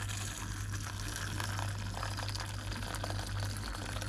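Hot water from a kettle pouring in a steady stream into a stainless steel bowl, filling it, over a steady low hum.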